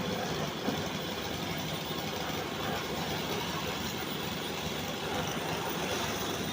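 An engine of road-construction machinery running steadily, a dense, even mechanical noise.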